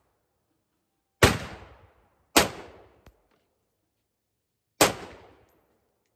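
Three single shots from a scoped AR-15-style rifle, each a sharp crack with a short echoing tail; the first two come about a second apart, the third about two and a half seconds later, and a fourth shot lands right at the end.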